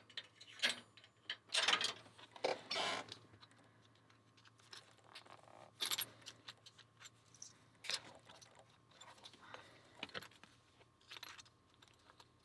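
Irregular metal clinks, clicks and short scrapes as a Master Lock 1921D padlock is worked by hand and with tools while being pulled apart.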